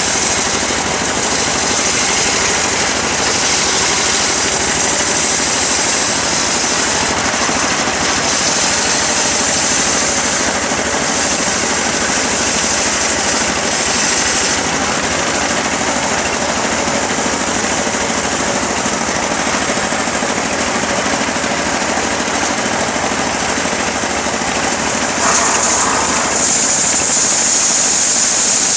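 Engine-driven homemade sawmill running steadily as it saws a teak log, the cutting sound rising and falling. It gets a little louder and brighter about 25 seconds in.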